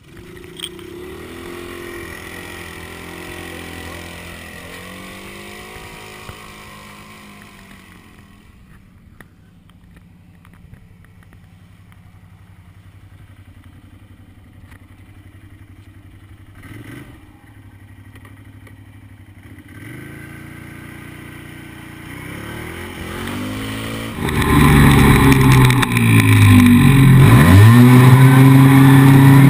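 Quad (ATV) engine running, its pitch rising and falling as the throttle is worked; fairly quiet at first, then much louder for the last few seconds as the quad is ridden hard, with a quick drop and rise in revs near the end.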